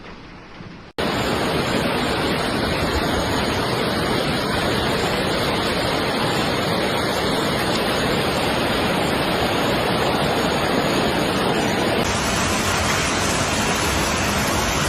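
Loud, steady rushing noise, such as storm weather or rushing water makes, starting abruptly about a second in and shifting slightly in character near the end.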